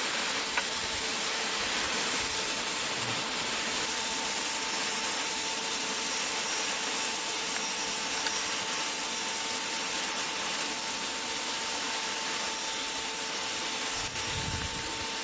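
Steady rushing hiss of a big metal rain gun irrigation sprinkler throwing its high-pressure water jet, with a faint steady hum underneath.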